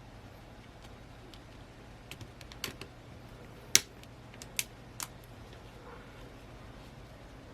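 A scatter of light clicks and taps from small phone parts being fitted and handled during reassembly, with one sharper click a little past the middle.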